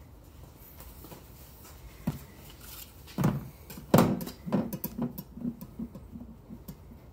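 Handling noise around a dead Canada goose on a table. There is a sharp knock about two seconds in, then a couple of louder knocks and scrapes as a leather knife sheath is laid down. After that comes a run of short rustles as hands part the feathers on the goose's breast.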